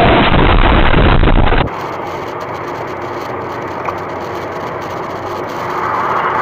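Loud, rough rumbling noise from a car crash clip that cuts off abruptly about a second and a half in. It is followed by the steady road and engine noise of a car driving on a highway, heard through a dashcam, which grows louder near the end.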